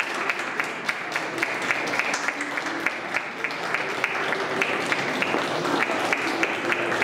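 A line of people clapping their hands steadily without pause: many overlapping claps in continuous applause.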